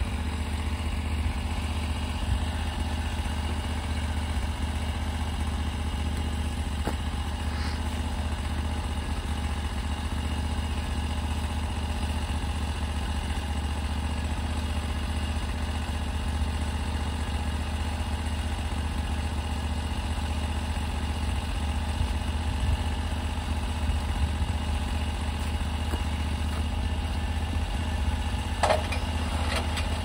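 Norwood HD38 portable sawmill's engine idling steadily. A short sharp knock sounds near the end, as the log is being clamped.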